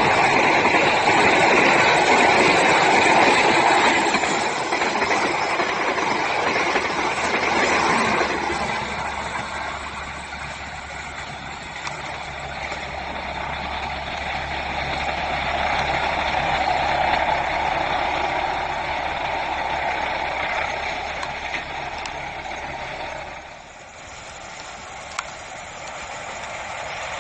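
A train running past: steady rumble and low engine hum, loudest at first, swelling again in the middle, then dropping off sharply about three-quarters of the way through.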